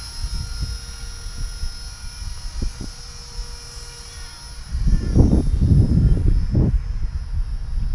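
Blade 200 SRX electric RC helicopter's motor and rotors whining, the high steady whine fading over the first four seconds. From just past halfway, loud low wind and handling rumble on the camera's microphone takes over.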